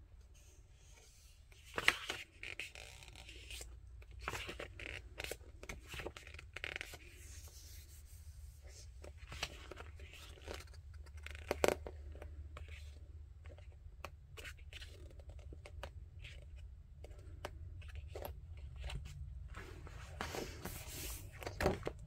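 Glossy pages of a paperback sticker activity book being turned and handled: a run of short paper rustles and crinkles, with the sharpest flips about two seconds in, near the middle, and just before the end as the book is closed.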